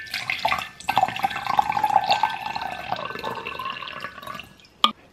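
Water pouring into a container for about three and a half seconds, filling with a ringing pitch, then fading. A single sharp knock follows near the end.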